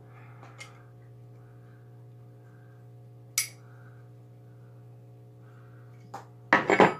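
Metal parts of a steel grappling hook clinking and knocking as it is handled and assembled: one sharp click about three and a half seconds in, then a cluster of louder metallic knocks near the end, over a steady low hum.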